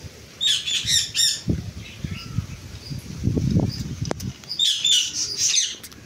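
Rose-ringed parakeets squawking in two short bursts of harsh, repeated calls, about half a second in and again near the end. Low knocking and rustling from the birds feeding at the bowl fill the gap in between.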